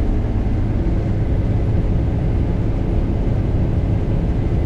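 Steady low drone of a combine harvester running while cutting soybeans, heard from inside the cab.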